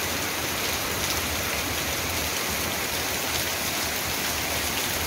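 Steady rain, eased a little, falling on a cobblestone street as an even hiss with a low rumble beneath.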